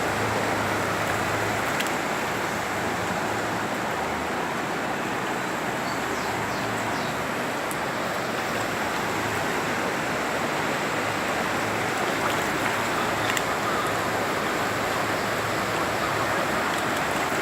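Heavy rain with runoff water rushing along the street: a steady, even wash of water noise.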